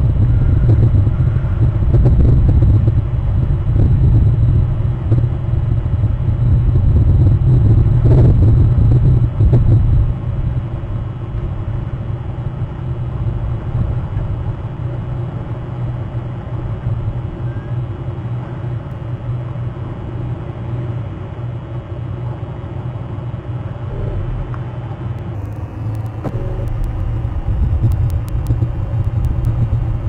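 A steady low rumble, louder for about the first ten seconds and then a little softer, with a few faint clicks near the end.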